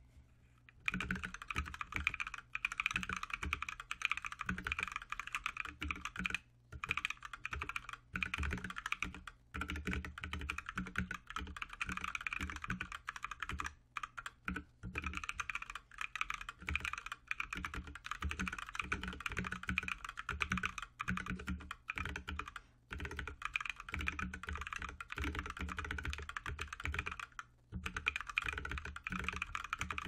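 Fast, continuous typing on a Lily58 Pro split keyboard with stock, unlubricated Blue Velvet tactile switches, DSA keycaps and a 3D-printed case, at about 100 words per minute. The keystrokes start about a second in and run on with a few brief pauses.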